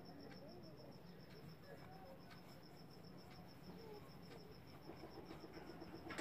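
A cricket chirping faintly in a fast, even run of pulses over quiet room tone.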